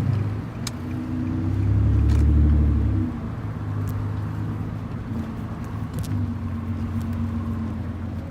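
Car engine running, swelling louder and deeper for about a second and a half around two seconds in, then dropping back to a steady drone.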